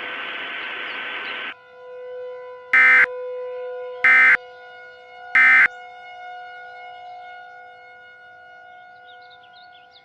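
Emergency Alert System end-of-message data bursts: three short, loud digital squawks about a second and a half apart. They sound over a held chord of steady tones that slowly fades, after a hiss that cuts off about a second and a half in.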